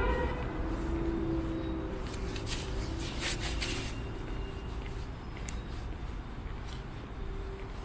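Outdoor city ambience: a low rumble of distant traffic with a faint steady hum, and a brief hissing rustle about three seconds in.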